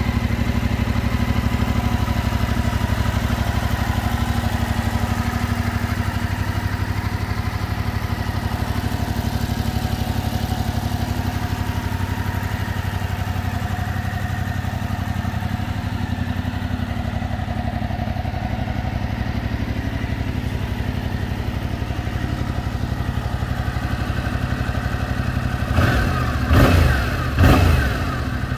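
Yamaha Tracer 700's 689 cc parallel-twin engine idling steadily in neutral, then blipped three times in quick succession near the end, the pitch rising and falling with each rev.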